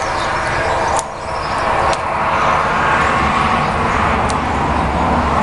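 A few sharp snips of small pruning scissors cutting Chinese elm bonsai shoots, about one, two and four seconds in, over a steady rushing background noise.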